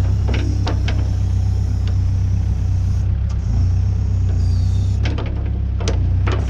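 New Holland B100B backhoe loader's diesel engine running steadily with a low drone, with several sharp knocks from the machine.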